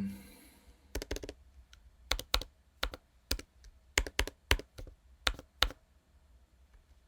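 Typing on a computer keyboard: around fifteen irregular keystrokes in small clusters, stopping a little before the end.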